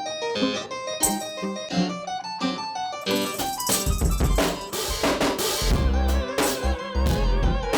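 Background music: a light plucked or keyboard melody, joined about three seconds in by drums and deep bass.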